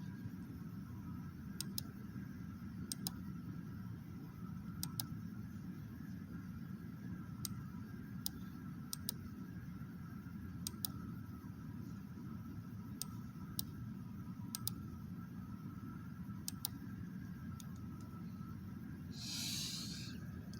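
Sharp, faint clicks at irregular intervals, roughly every second or two, over a steady low hum, with a short hiss near the end.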